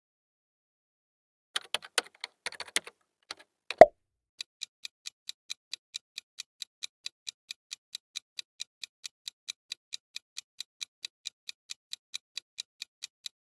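A few scattered clicks and one loud pop, then a countdown-timer clock-tick sound effect ticking steadily about four times a second.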